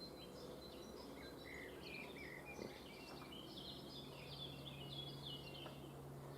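Faint outdoor birdsong: many short, high bird chirps overlapping, with a steady low hum coming in about two-thirds of the way through.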